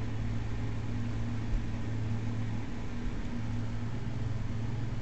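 Steady low mechanical hum over an even hiss, with a second, slightly higher hum tone joining about four seconds in.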